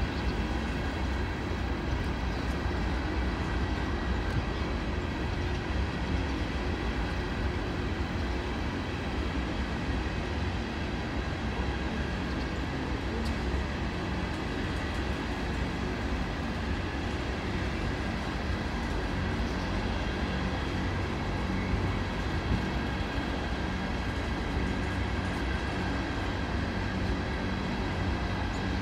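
Norfolk Southern freight train's covered hopper cars rolling past steadily, their wheels running on the rails with a continuous rumble. Thin steady high tones sit above the rumble.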